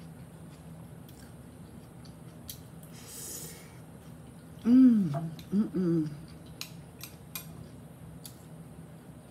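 Metal chopsticks clicking against a glass bowl of stir-fry noodles, with a short slurp about three seconds in. Midway come two short "mm-mm" hums of enjoyment through a full mouth, the pitch bending up and down, which are the loudest sounds.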